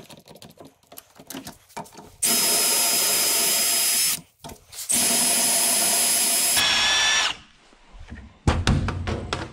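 Milwaukee cordless drill boring through a small piece of steel angle iron held in locking pliers, in two steady runs of about two seconds each. The motor winds down as it stops the second time. Clicks and clatter of the part and tools being handled come before and after.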